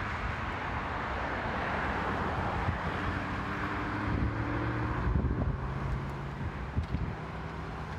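Wind buffeting the phone's microphone, with a motor vehicle passing on the road: its engine note rises from about three seconds in, then holds steady for a couple of seconds.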